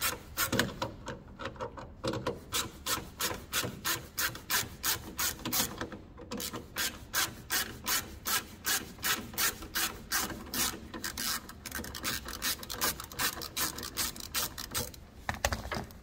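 Ratcheting T25 Torx driver clicking in an even run, several clicks a second, as it is worked back and forth to undo the screw holding a car door's lock barrel. The clicking stops about a second before the end.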